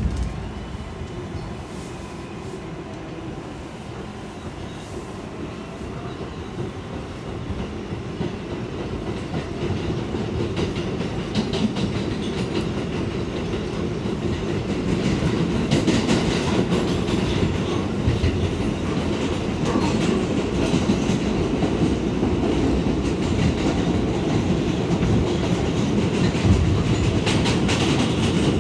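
Inside a New York City 7 train R188 subway car running between stations: a steady rumble of wheels on track with clicking over the rail joints, growing louder through the first half and then holding.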